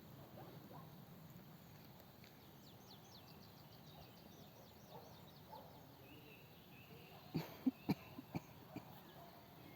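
Faint outdoor ambience with a bird giving a rapid run of short high chirps, then a cluster of a few sharp knocks about three-quarters of the way through, the loudest sounds here.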